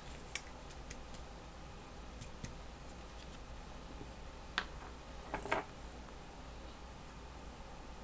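Sharp clicks and light taps of a glass hot sauce bottle and its cap being handled: one loud click about half a second in, a few faint ticks, and a short cluster of clicks a little past the middle.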